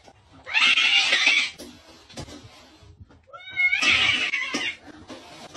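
Ginger cat giving two harsh, noisy yowls about three seconds apart, each about a second long, the second led in by a short wavering rising cry. It is an angry display at its own reflection in a mirror.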